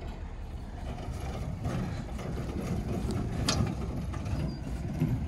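Wrecked box van being dragged on a chain over rough dirt: clattering and rattling from the loose body and chain over a low vehicle rumble, growing louder, with a sharp clank about three and a half seconds in.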